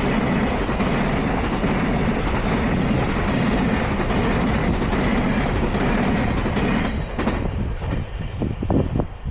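A train passing close by over a level crossing: a steady, loud rush of wheel and track noise that drops off about seven seconds in as the train clears, leaving uneven, gusty noise.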